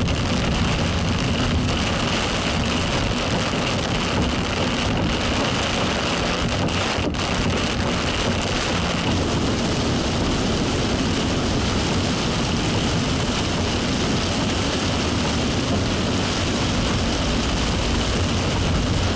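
Car driving at speed, heard from inside the cabin: a steady, unbroken hiss of road and engine noise.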